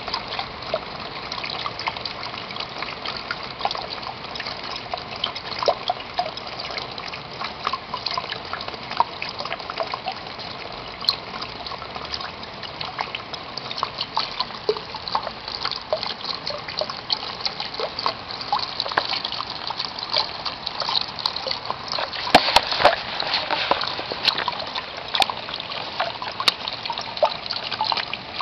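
Steady rain falling, with countless small irregular drop ticks on a plastic sheet. A cluster of louder, sharper clicks comes about three-quarters of the way through.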